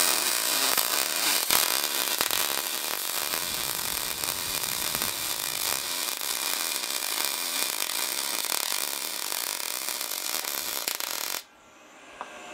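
MIG welding arc on aluminium sheet, running as a steady hiss, then cutting off suddenly near the end as the trigger is released.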